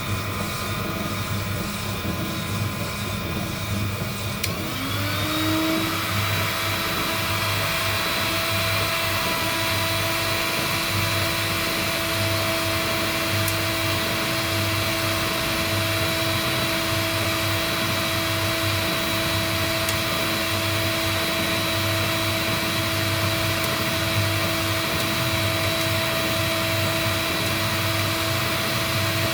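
Steady whirring airflow from a heat-gun coffee roasting rig. About four and a half seconds in, a motor spins up with a rising whine that settles into a steady tone and runs on.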